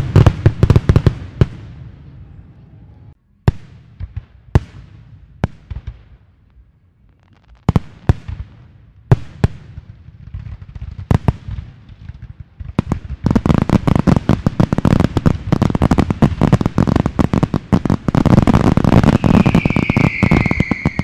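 Aerial fireworks going off: single, well-spaced bangs for the first half, then a dense barrage of rapid crackling reports from about two-thirds in. A high whistling tone glides slightly downward near the end.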